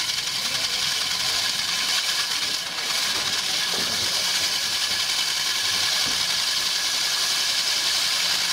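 Hycon hydraulic diamond core drill with a very large-diameter bit cutting into concrete: a loud, steady grinding hiss, over the running engine of the hydraulic power pack that drives it. The sound dips briefly between two and three seconds in.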